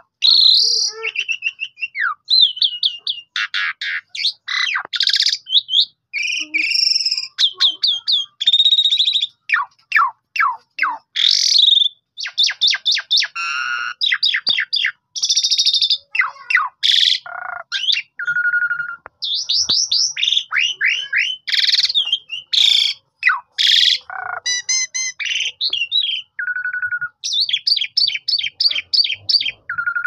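A pied starling (jalak suren) in full, non-stop song: fast runs of falling chattering notes mixed with buzzy rattles and clear whistles, changing every second or two.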